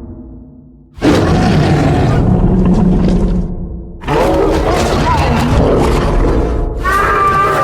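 Creature sound effects voicing a nine-tailed fox: two separate calls, each two to three seconds long, with a wavering pitch in the second. Then, near the end, a higher, steady-pitched cry that fades away.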